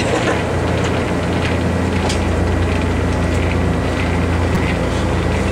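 Zeppelin NT airship's piston engines and propellers droning steadily, heard from inside the gondola.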